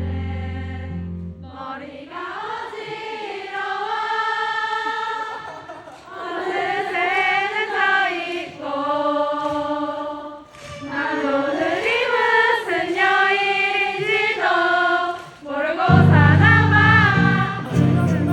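A concert crowd singing a song together with no instruments under it, after a held low band note fades out about a second and a half in. Near the end the band's bass and low instruments come back in under the singing.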